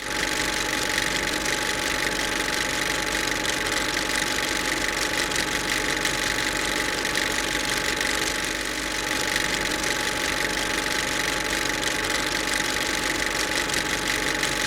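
Honda Lead 125 scooter's single-cylinder engine idling steadily.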